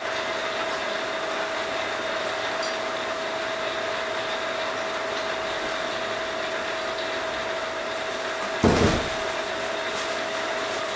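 Steady hum of operating-room equipment with a constant tone, broken about nine seconds in by one heavy knock: a mallet striking the bone punch to drive a pilot hole for a suture anchor.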